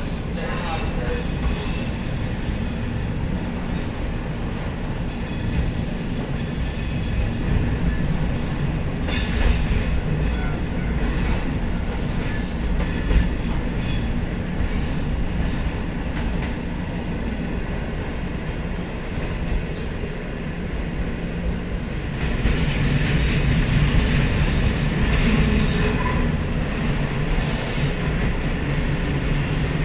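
Kotoden 1200-series electric train running along the line, heard from inside the cab: a steady rumble of wheels on rail with scattered clicks. It grows louder and harsher about two-thirds of the way through.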